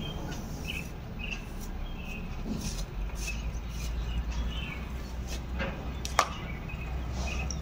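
Plastic comb being drawn through a ponytail of long hair: soft brushing strokes every second or so, with one sharp click about six seconds in, over a low steady hum.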